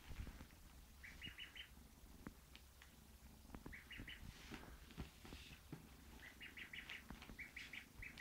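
A bird chirping faintly in quick runs of three to five short, high notes, repeated several times, over soft rustling and light knocks.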